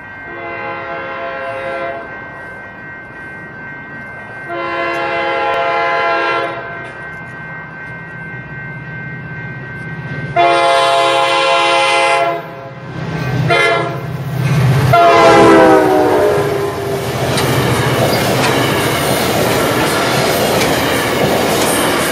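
Diesel locomotive of an NCTD Coaster commuter train sounding its horn as it approaches: long blasts, then a short one, then a final long blast that drops in pitch as the locomotive goes by. The engine's rumble grows with the horn, and the train's cars then pass close with a steady rush and clatter of wheels on rail joints.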